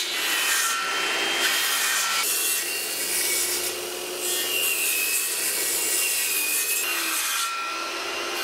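Two circular saws, an old Porter-Cable and an old Ryobi, running and cutting wood as they make a row of shallow depth cuts across clamped lumber, their whine shifting in pitch as they go.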